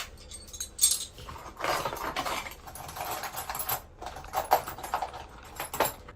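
Clicks, light knocks and scraping from hands and tools working on a washing machine's cabinet, with a stretch of rustling, scraping noise in the middle.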